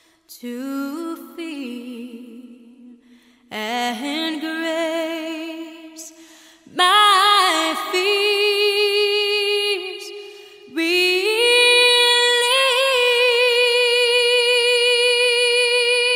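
A woman's voice singing slowly, unaccompanied, in four phrases with vibrato; the last phrase is the loudest and is held for several seconds.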